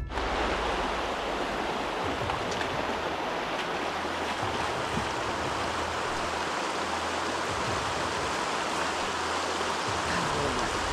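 Shallow rocky stream rushing steadily over stones close by.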